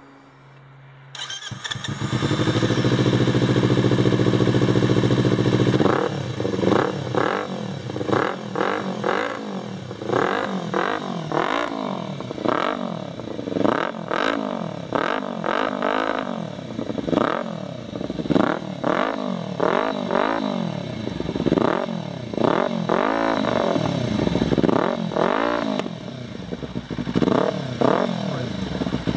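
Kawasaki Z300's parallel-twin engine, breathing through an SP Engineering Diabolus slip-on exhaust with no dB killer fitted, starting about a second in and running at a steady idle for a few seconds. It is then blipped through a long series of throttle revs, each rising quickly and dropping back to idle.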